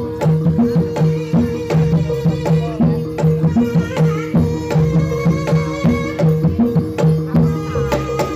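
Javanese jaranan (kuda lumping) gamelan music: a drum pattern of several strokes a second under a steady held tone. A melody line comes in about four seconds in.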